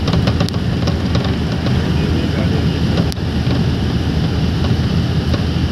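Steady engine and road noise of a moving vehicle, heard from inside its cabin through the closed window, with a few light clicks or rattles.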